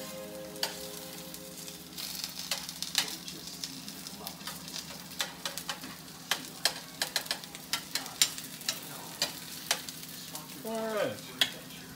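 Potato pancakes (latkes) frying in oil in a pan with a steady sizzle. Many sharp clicks and scrapes of a metal spoon against the pan and the batter bowl run through it.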